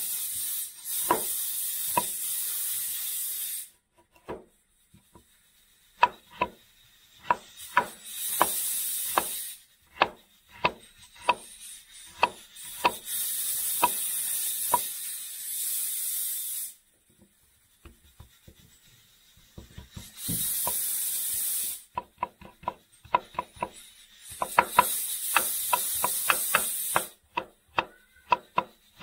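Stir-frying in a wok: a spatula knocks and scrapes against the pan in quick irregular strokes, with several stretches of loud hissing sizzle that start and stop abruptly.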